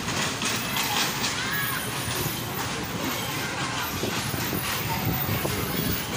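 Bumper-car ride din: a steady noisy rumble of the electric bumper cars running over the floor, with repeated knocks and clatter, and faint voices calling out in the background.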